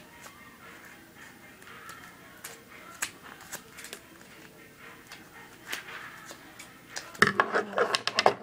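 Scissors snipping paper a few times, scattered single clicks. About seven seconds in, a loud second-long burst of close paper rustling and crackling as the cut paper is handled.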